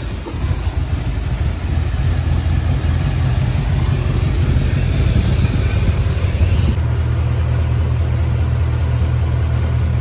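Mercedes-Benz C63 AMG's M156 V8, newly fitted with a Weistec supercharger, idling steadily on one of its first runs.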